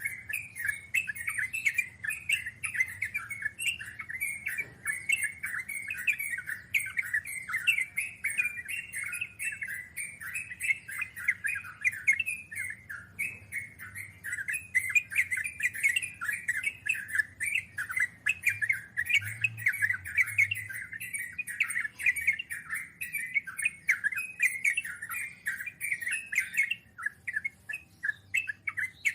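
Yellow-vented bulbul (trucukan) singing a long unbroken run of quick, chattering notes, the rapid rolling song called 'ngeropel'.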